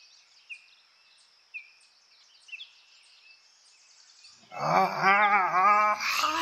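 Faint bird chirps, repeating about once a second. About four and a half seconds in, a voice breaks into a loud, drawn-out, wavering 'aaargh' cry.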